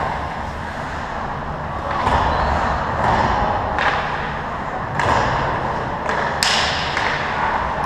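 Ice hockey rink sounds: skate blades scraping on the ice in several swells, with a few sharp clacks of sticks or puck, the loudest about six and a half seconds in.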